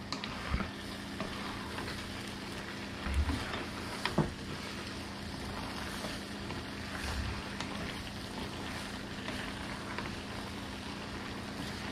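Pasta and a creamy sauce simmering hard in a stainless-steel skillet over a high gas flame, a steady hiss with a faint low hum under it, as the sauce reduces and thickens. A wooden spatula stirs the pasta, knocking and scraping the pan a few times about three to four seconds in.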